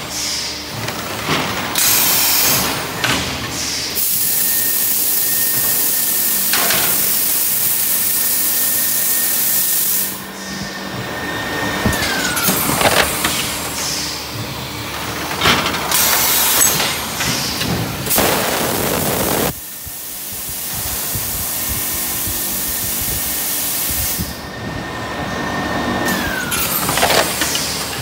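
MX700-1200 vacuum forming machine cycling as it forms plastic cup lids. There are long spells of air hissing that start and stop abruptly, a steady whine that drops in pitch as it cuts out, and scattered metal clunks. The cycle repeats about every 15 seconds.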